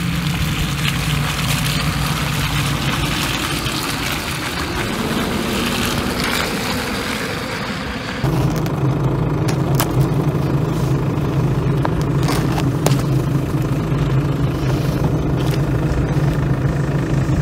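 Pickup truck running on a muddy track, a steady rushing drive noise. About eight seconds in, it cuts abruptly to a steadier low engine-like hum with a few sharp clicks.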